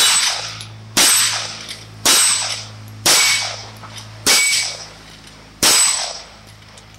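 Six shots from a Rock Island Armory 1911 pistol in 9mm, about a second apart, each ringing off as steel plates of a plate rack are hit and knocked down. The pistol fires every round without a stoppage.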